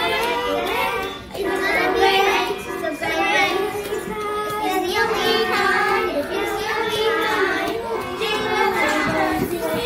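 Young children's voices singing a song together over a backing music track, with a brief drop in the singing about a second in.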